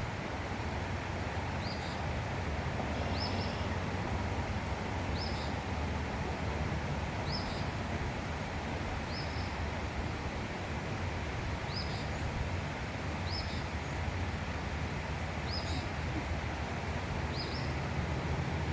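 A small songbird repeating a short, high chirp about nine times, roughly every two seconds, over a steady rushing outdoor background noise.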